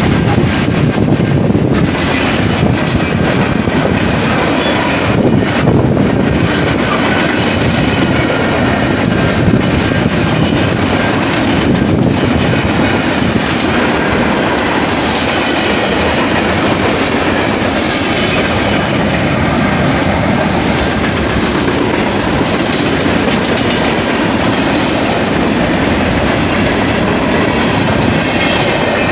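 Train rolling past a crossing: a steady, loud rumble of its wheels on the rails that keeps on throughout.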